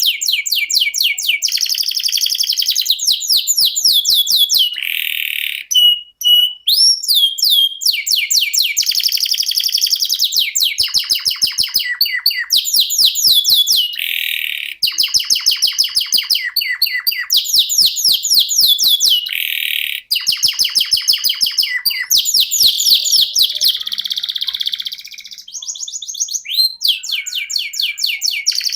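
Domestic canary singing a long, unbroken song of fast rolling trills. Each phrase is a quick run of repeated notes that switches to a new phrase every second or two, with a few held whistled notes and pitch glides about a quarter of the way in.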